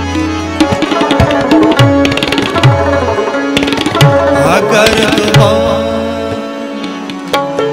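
Instrumental passage of an Afghan ghazal: tabla strokes, the low drum's pitch bending up and down, under a held melodic accompaniment.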